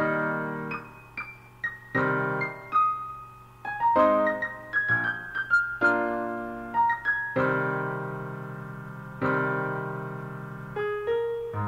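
Solo piano playing a slow piece: full chords in both hands under a melody high in the treble, each struck chord ringing and fading away, with a few long-held chords in the second half.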